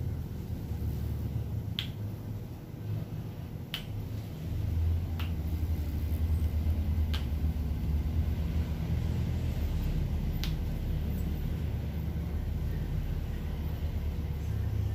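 Five sharp clicks, spaced one to three seconds apart, over a steady low rumble that grows louder about four and a half seconds in.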